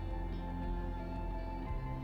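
Soft background music with held tones and a low bass line.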